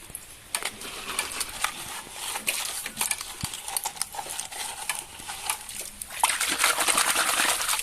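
Wet sloshing and rustling with scattered sharp plastic clicks as toy vehicles are dug out and handled; it grows louder and rougher for the last second and a half.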